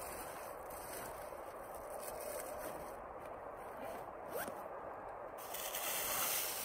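Rustling of a hunter's clothing and hands working at the ground, with a brief click about four seconds in and louder rustling near the end.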